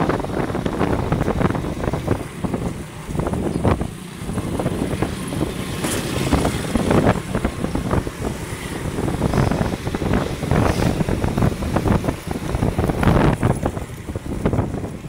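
Wind buffeting the microphone of a moving motorbike in gusts, over the steady rush of the ride.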